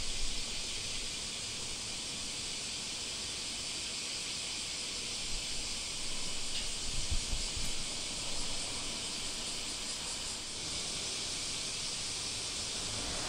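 Steady, even hiss of background ambience with no distinct source, with a few faint low thumps about seven seconds in.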